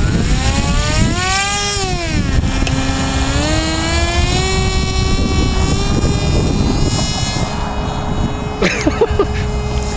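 RC airplane's motor and propeller whining in flight. Its pitch swoops up and down over the first two seconds, then climbs and holds steadier as the plane flies on. Wind rumbles heavily on the microphone underneath.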